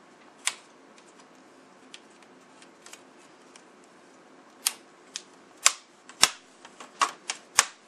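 Sharp plastic clicks and snaps as the snap-fit clips of an HP G71 laptop's screen bezel are pried apart by hand: one about half a second in, then a quick irregular run of louder ones over the last three seconds.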